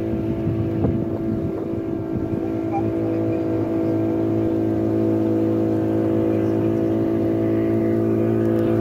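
Outboard motor driving a wooden canoe, running steadily at an even speed.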